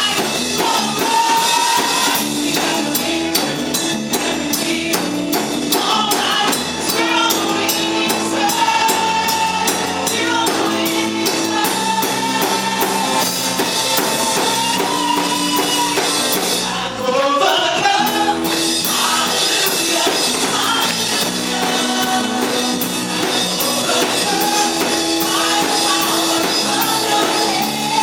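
Contemporary worship music: a voice sings long held notes over a band with drums and tambourine. The high rhythmic percussion drops out briefly about two-thirds through, then comes back.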